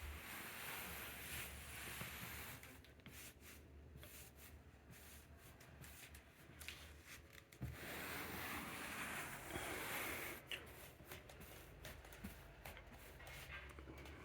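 Cushion with fabric-covered buttons giving off a rustling, crackling noise with small clicks as it is pressed and shifted, in two longer spells; an abnormal noise coming from inside the cushion.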